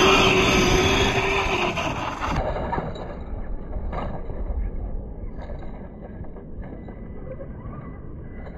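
Electric radio-controlled car driving on grass: a high motor whine and running noise that start suddenly and loud, then fade over several seconds as the car gets farther off.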